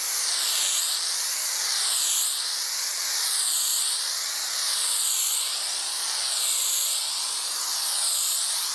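Aerosol can of spray adhesive hissing continuously as it sprays glue onto a panel. The hiss rises and falls in tone every second or so as the nozzle sweeps back and forth across the surface.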